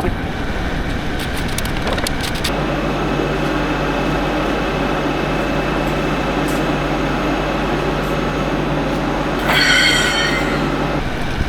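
Diesel engine of a fork-equipped machine running steadily, in the middle of an exhaust-filter regeneration, with a few clicks early on and a brief high metallic squeal about ten seconds in.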